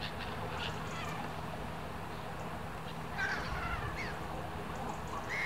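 Gulls calling over a flock of waterbirds on a lake: scattered short, harsh cries, a few together about three seconds in and another near the end, over a steady low hum.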